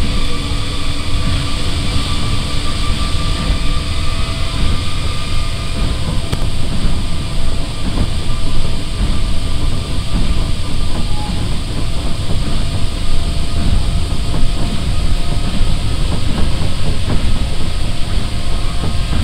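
Running sound heard inside an Osaka Monorail straddle-beam monorail car: a steady, loud rumble of its rubber tyres on the concrete track beam. A steady motor whine fades away over the first few seconds.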